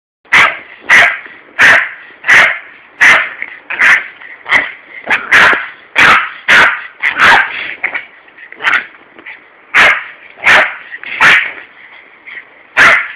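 Yorkshire terrier barking at a garden hose nozzle: sharp, rapid barks, about one and a half a second, with short gaps about eight and twelve seconds in.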